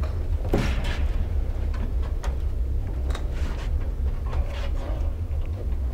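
Scattered knocks and scrapes over a steady low rumble, with one louder scrape about half a second in.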